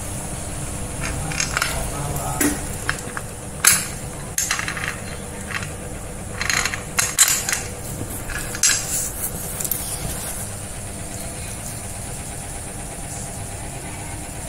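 Metal parts of a Mailtank angle-grinder cut-off stand clinking and knocking as they are handled and fitted, a scatter of sharp clicks over a steady low background hum. The loudest knocks come a little under four seconds in and again around seven seconds.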